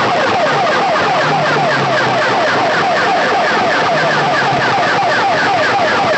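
Loud electronic siren-like effect played through banks of horn loudspeakers: rapid falling chirps, about four a second, over a low bass note that comes back about every two and a half seconds.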